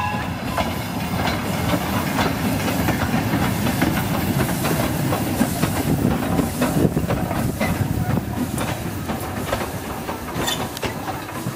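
Great Northern Railway N2 0-6-2 tank steam locomotive running past under steam, with steam hiss and its wheels clicking over the rail joints, loudest as it draws level about halfway through.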